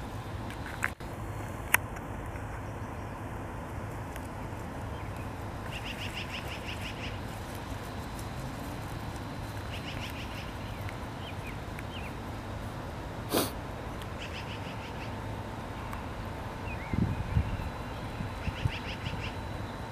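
A beaver chewing grass at close range: short bursts of rapid crunching every few seconds over a steady background hiss, with an occasional sharp click.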